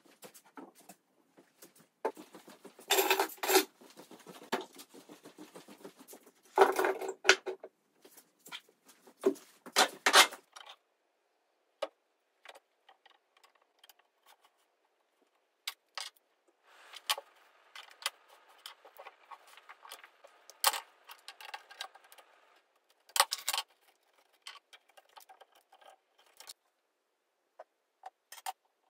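Workshop handling sounds at a wooden workbench: oak frame pieces and metal clamps being set down and moved, giving irregular knocks, clicks and short scrapes, with a quieter spell in the middle.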